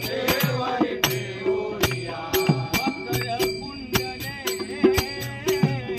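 Marathi devotional bhajan (an abhang): voices singing over a hand drum, with small hand cymbals striking a quick, steady beat.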